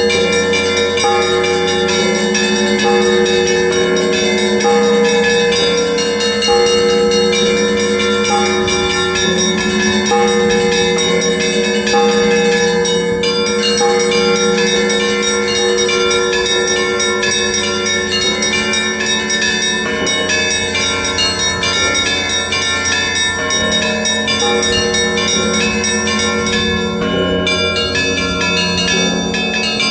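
Russian Orthodox monastery bells rung together in a continuous, rhythmic peal. Deep bells sound in a repeating pattern under many quick strikes on the smaller, higher bells.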